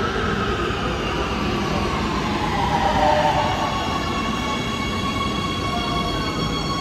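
Warsaw Metro Siemens Inspiro train pulling into an underground station and braking, its motor whine falling in pitch as it slows. Thin steady high tones join from about halfway through.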